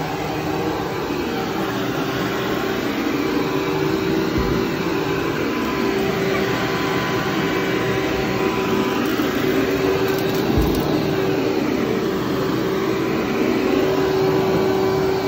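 Upright vacuum cleaner running on carpet as it is pushed back and forth: a steady motor hum over the rush of suction, with two brief low bumps about four and ten seconds in.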